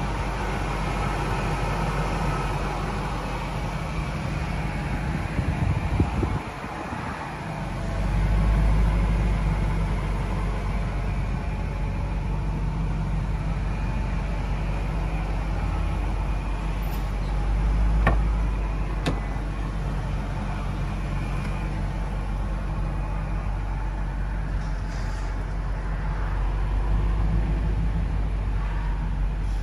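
Supercharged 5.4-litre V8 of a 2000 Ford F-150 SVT Lightning idling steadily, with a couple of sharp clicks about two-thirds of the way through.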